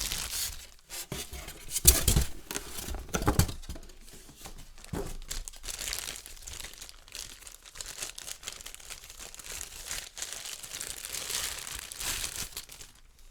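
Packaging crinkling and tearing as a new microphone is unwrapped by hand, an irregular run of crackles with louder rustles about two and three and a half seconds in.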